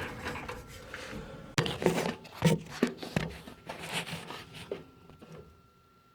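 Scattered knocks, taps and scrapes from hands and tools working on a furnace, growing quieter toward the end, with a faint steady high tone under them.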